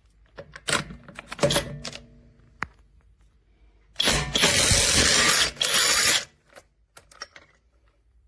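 boen 1/2-inch brushless cordless impact wrench running loudly for about two seconds, in two bursts close together. It is preceded and followed by clicks and knocks of the tool and socket being handled.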